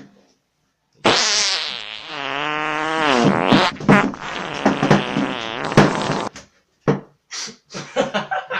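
A long, loud comic fart noise. It starts as a drawn-out tone that wavers in pitch, then breaks into a rapid sputtering run, and ends with a few short separate puffs.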